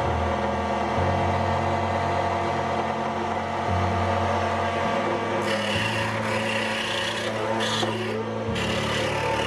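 Small motor of a Raitool 8-in-1 mini machine running steadily, spinning an abrasive sanding disc. About halfway in, an aluminium bracket is pressed to the disc and a rasping grind starts, breaking off briefly twice near the end.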